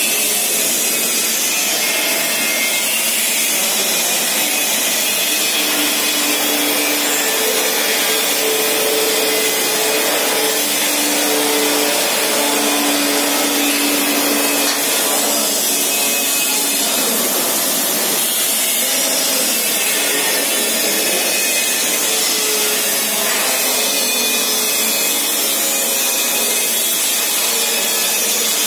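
Steady, loud machine noise: an even hiss with faint humming tones that come and go, mostly in the first half.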